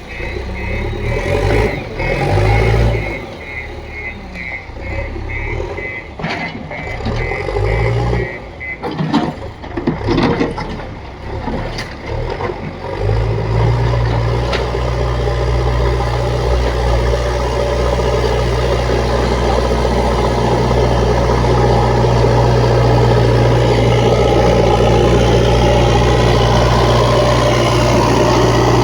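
JCB backhoe loader working, its reversing alarm beeping steadily over the diesel engine for the first several seconds. A few knocks and clatters follow. Then the engine picks up and runs hard and steady under load.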